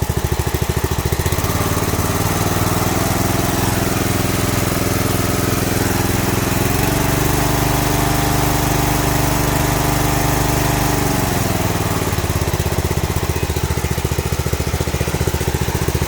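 Big Dog C142 zero-turn mower's engine revving up from idle in steps over the first few seconds, holding at high speed, then dropping back to idle about twelve seconds in.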